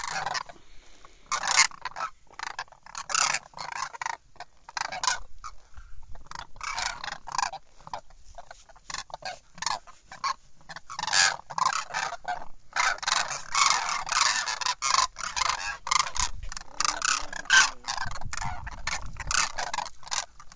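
A flock of demoiselle cranes calling together: many short, overlapping calls in a constant chorus, densest in the second half.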